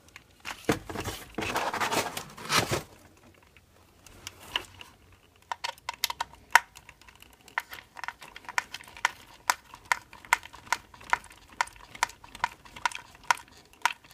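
Handling and scraping of small plastic parts, then a long run of small sharp clicks, about two to three a second, as small screws are tightened with a precision screwdriver.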